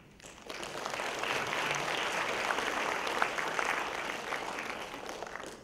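Audience applauding, many hands clapping at once. It swells quickly about half a second in and dies away near the end.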